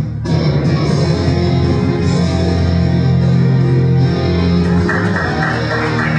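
Music with long held low notes; a rougher, hissier layer joins about five seconds in.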